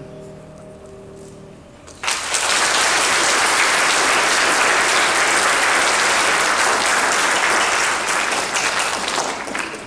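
The last chord of viola and piano fades away. About two seconds in, an audience breaks into applause, which goes on steadily and thins out near the end.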